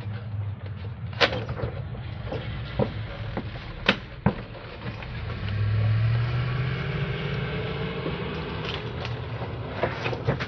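Refrigerator being handled during delivery: sharp knocks and clicks over a low rumble that swells about six seconds in, with a faint rising creak.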